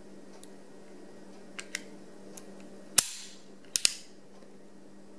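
Nichols Stallion 32 cap pistol firing: a couple of light mechanical clicks, then about three seconds in a single sharp, pretty loud bang as an old stick-em cap on the second cartridge goes off after a misfire. Two more sharp clicks follow close together less than a second later.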